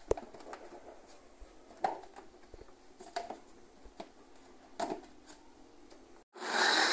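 Plastic blender jar and lid clicking and knocking as they are fitted onto the base, then about six seconds in the blender motor switches on and runs at full speed, a loud steady whirr.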